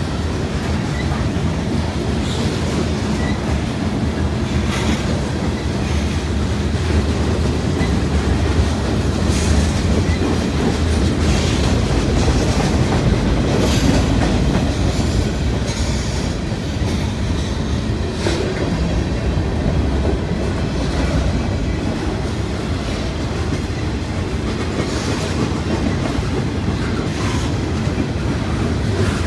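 A mixed freight train's cars rolling steadily past, with loud, continuous rumbling and steel wheels clicking and clacking over the rail joints.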